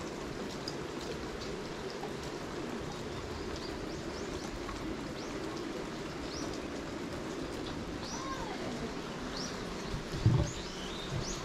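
Steady rain falling, with small birds chirping now and then, more often in the second half. A loud knock about ten seconds in, followed by a few softer ones.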